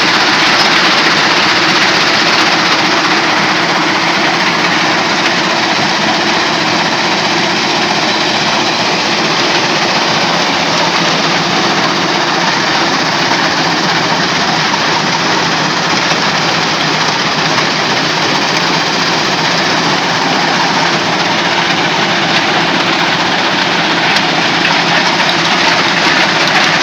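Stone crusher machine running: a loud, steady mechanical din with an engine hum underneath, unbroken throughout.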